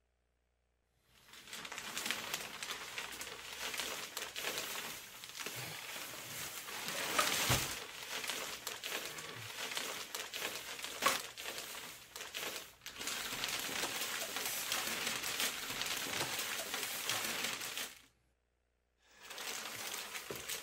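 Black plastic bin bags rustling and crinkling as someone lying among them shifts about, with a few sharper crackles along the way. The rustling stops briefly near the end, then starts again.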